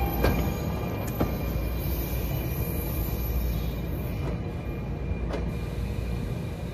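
NJ Transit Arrow III electric multiple-unit train rolling away. Its wheels click sharply over rail joints twice in the first second or so, then a steady rail rumble slowly fades as the train recedes.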